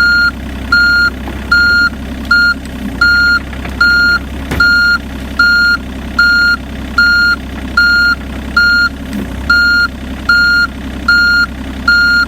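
John Deere 35G compact excavator's travel alarm beeping steadily, about one beep every 0.8 s, over its diesel engine running, as the raised track is run back and forth to check its tension. A single clunk sounds about four and a half seconds in.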